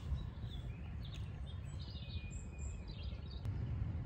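Outdoor lakeside ambience: a steady low rumble of wind on the microphone, with birds chirping several times, including one longer thin call in the middle.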